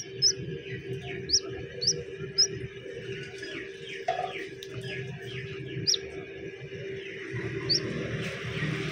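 Hatching chick peeping from inside its cracked egg: short high peeps, five in the first two and a half seconds and two more later, over a steady hum.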